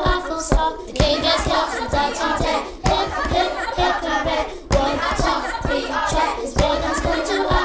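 A group of voices chanting together in unison, with sharp hand claps about every second or two.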